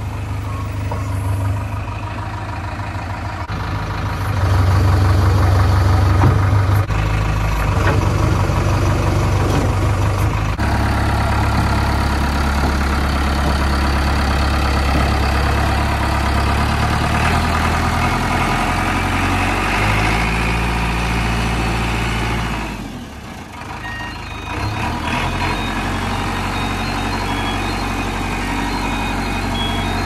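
JCB 3DX backhoe loader's diesel engine working under load while loading, its revs rising about four seconds in and shifting several times, then dropping briefly a little after twenty seconds before picking up again.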